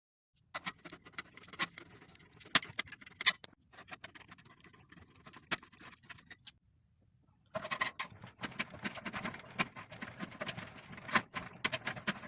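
Clicking, scraping and clattering of metal parts and tools as a microwave oven is taken apart. The noise runs in a dense stretch, stops for about a second halfway through, then starts again.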